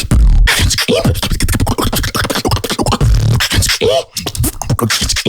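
Solo human beatboxing: a fast, dense run of vocal kick drums, snares and hi-hat clicks with deep bass hits and short gliding pitched sounds, one heavy bass hit right at the start.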